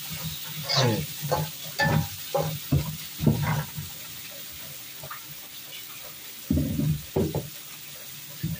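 Metal spatula stirring and scraping in a wok of spice paste and broth on a portable gas stove: a quick run of scrapes and knocks over the first few seconds, then a steady sizzling hiss, with one more short clatter about six and a half seconds in.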